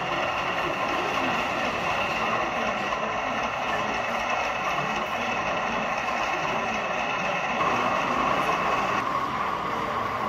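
Engine sound of a sound-fitted OO gauge model diesel locomotive, a steady multi-tone hum like an idling diesel. Its tone shifts about eight seconds in and again a second later, like the engine notching up.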